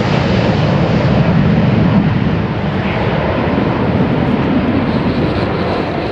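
Jet engine noise from a formation of USAF Thunderbirds F-16 fighters passing overhead: a loud, steady rush that is strongest about one to two seconds in and eases a little towards the end.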